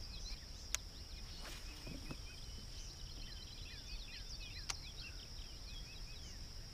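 Steady high insect trill with many short bird chirps over it, and two sharp clicks, one about a second in and one near five seconds.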